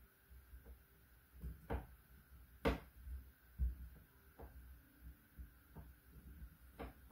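Small plastic rolling pin rolled back and forth over modelling clay on a wooden tabletop: faint, irregular soft thumps and knocks, with a sharper click about two and a half seconds in.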